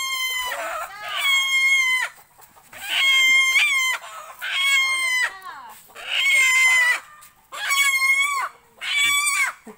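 A chicken squawking loudly in distress as it is caught and held, about seven long, harsh, steady-pitched cries, each under a second, coming roughly one every second and a bit.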